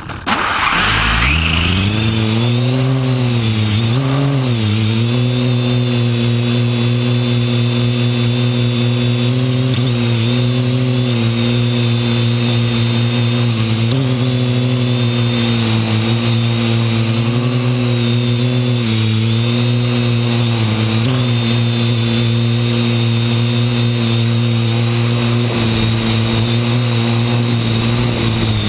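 Parrot AR.Drone quadcopter's electric motors and propellers spinning up in the first second, then a loud steady hum with several overtones and a hiss of rushing air, its pitch dipping and rising briefly every few seconds as the drone flies. Heard close up from on board the drone.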